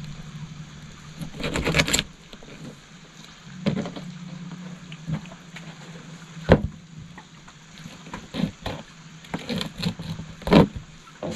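Knife cutting up a hairtail on a plastic cooler lid: a scraping, sawing stretch about a second in, then scattered knocks of the blade and fish on the lid, the loudest two near the middle and near the end. A steady low hum runs underneath.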